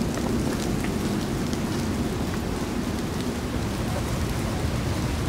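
Steady rain falling on a street, an even hiss over a low rumble, with faint scattered drop ticks.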